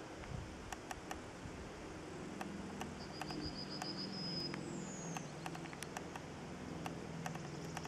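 Distant TEP70 diesel passenger locomotive approaching, its V16 diesel engine a steady low drone. A bird trills a few seconds in and gives a short falling whistle just after, over scattered faint clicks.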